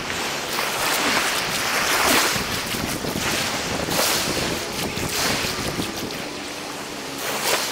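Waves washing in and wind buffeting the microphone, a loud noisy rush that swells and eases every second or two.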